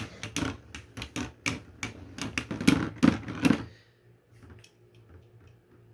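Spinning Beyblade tops clashing in a plastic stadium: rapid, irregular hard plastic clacks for about three and a half seconds, then only a few faint ticks.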